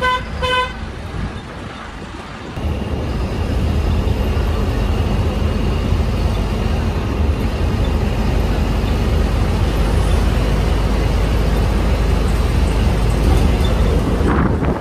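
A vehicle horn beeps twice briefly. Then the MSRTC bus runs at speed, its engine and road rumble loud and steady.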